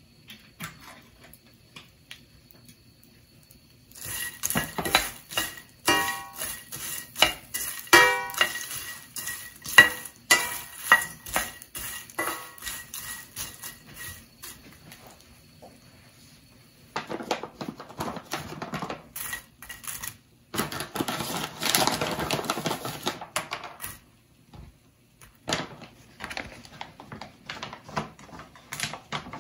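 Wooden spatula stirring crisp dried shrimp in a stainless steel frying pan: rapid clicking and scraping of the dry shells against the metal, with the pan ringing briefly at sharper knocks. The stirring comes in spells after a quiet start, with a rougher scraping stretch in the middle and more scattered clicks near the end.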